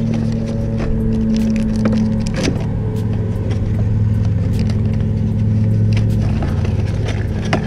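Plastic lure packets and cardboard crinkling and rustling as a hand sorts through a tackle box, with many short crackles, over a steady low hum.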